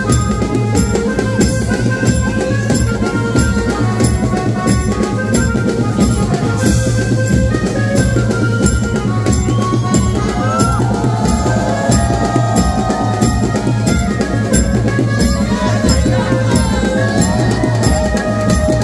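Banjo party band music: drums and cymbals keep a steady, fast beat under held melody notes, loud and unbroken.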